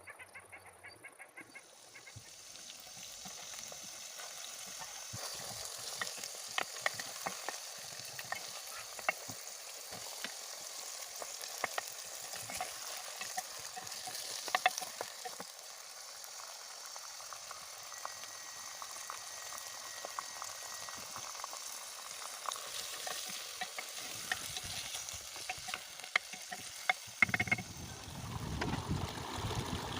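Food sizzling in a frying pan, with frequent sharp clicks of a utensil stirring against the pan. About three seconds before the end, a louder, deeper rushing sound sets in.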